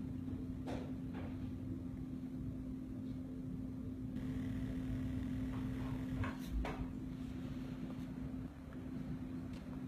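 A steady low machine hum with one even tone, with a few light clicks and taps about a second in and again around six and a half seconds in.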